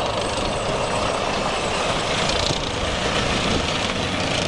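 Steady rush of water spraying, washing mud off a toy tank.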